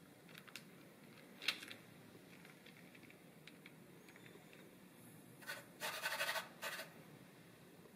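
A plastic paw-print cookie cutter tapping faintly on dough and hands rubbing over floured parchment paper, with a short burst of scraping and rustling about five and a half seconds in.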